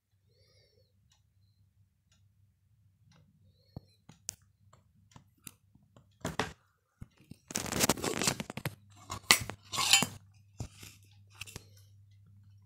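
Handling noise from a powder tin being turned and gripped in the hand: scattered clicks and clinks, with a louder rattling clatter from about seven and a half to ten seconds in, over a faint low hum.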